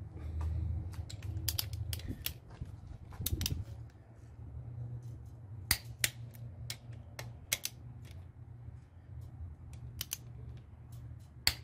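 Click-type torque wrench working on connecting-rod cap nuts: a run of sharp, irregular ratchet clicks, thinning to spaced single clicks, with a few louder clicks as the nuts are brought up to 45 foot-pounds on the second torque pass.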